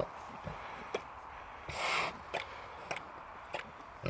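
Quiet movement noise from a sow: a few light clicks and knocks, with one breathy rush about two seconds in.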